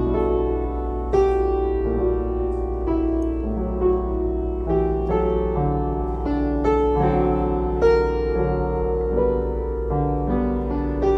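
Background piano music, single notes and chords struck at an unhurried pace, over a steady low hum.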